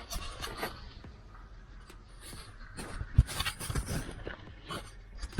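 Scattered clicks, knocks and rustles of hands handling things around the car, with one sharp knock about three seconds in.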